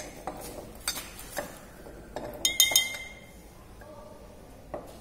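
Laboratory glassware clinking and knocking: scattered light taps, then a quick cluster of sharp, ringing glass clinks about two and a half seconds in, and one last knock near the end.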